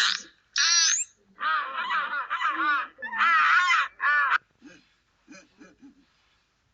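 Recorded animal calls played back one after another: a quick run of loud, shrill, wavering squawks and caw-like cries, then a few fainter short calls about two thirds of the way through.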